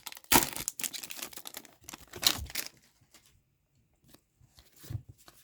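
Hockey card pack wrapper being torn open, a few sharp rips and crinkles in the first couple of seconds, with a few faint soft handling sounds near the end.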